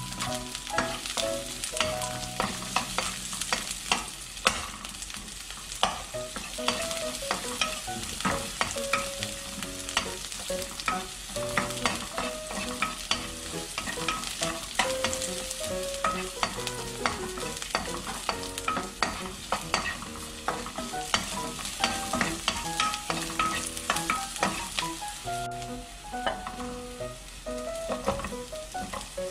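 Sliced garlic and green onion sizzling in hot oil in a nonstick wok. A wooden spatula stirs them, with frequent sharp clicks and taps against the pan.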